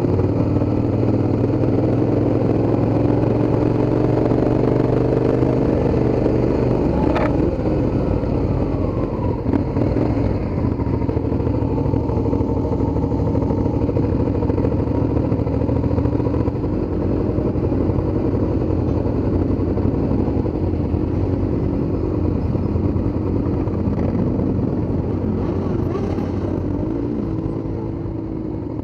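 Motorcycle engines in a slow-moving group ride, heard from a rider's own bike: its engine runs steadily with small shifts in pitch among the other bikes' engines. There is one sharp click about seven seconds in.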